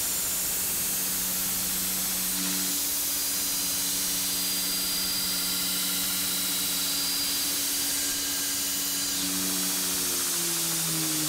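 Belt grinder running, its abrasive belt grinding the rusty steel face of a cleaver blade: a steady hiss over the motor's hum. The hum drops in pitch near the end.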